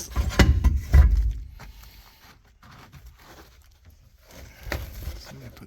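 Something heavy being shifted in a car trunk: several low thumps and knocks, the loudest about a second in, with scraping and rattling, then quieter handling and a few more knocks near the end.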